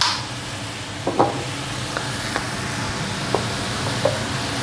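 Chicken pieces and diced peppers and onion sizzling steadily in a hot frying pan, with a few short pops of spitting fat. A kitchen extractor hood fan hums steadily underneath.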